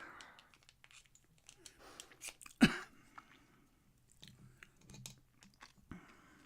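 Lock pick scraping and clicking against the pins inside a pin tumbler lock, with small irregular ticks and rasps while the pins are worked. One sharp, louder knock comes about two and a half seconds in.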